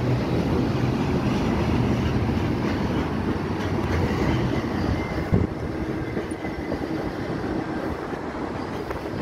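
Double-stack container freight train's well cars rolling past, a steady rumble of steel wheels on rail, with a single sharp knock about five seconds in.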